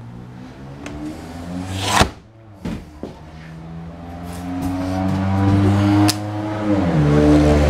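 A motor vehicle's engine running, growing louder over the second half and dropping in pitch near the end as it passes. A sharp knock about two seconds in.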